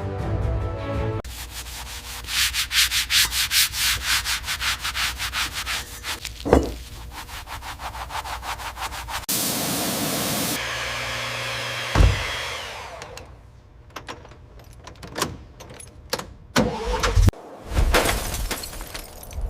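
Rapid back-and-forth sanding strokes, about four a second, with a sharp knock partway through. Then a short burst of steady hiss, one heavy thud, and a run of scattered clicks and knocks.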